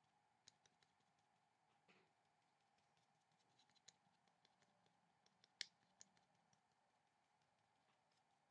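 Near silence over a faint steady hum, with faint, irregular taps and scratches of a thin paintbrush dabbing paint onto paper; one tick about two-thirds of the way in is sharper than the rest.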